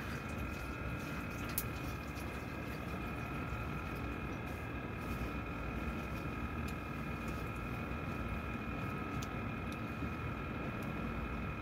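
A small electric motor running steadily with a constant high whine over a low hum, with a few faint ticks.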